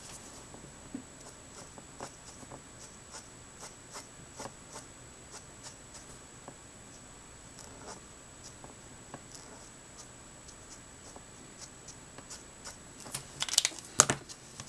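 Letraset Promarker alcohol-marker nib making short strokes across Neenah Solar White paper: faint, repeated scratches, a few each second. Near the end comes a louder cluster of knocks and rustles.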